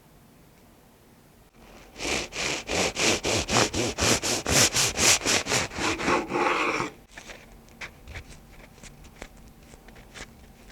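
Rapid, rhythmic scraping strokes, about four a second, for about five seconds, then a few faint light clicks.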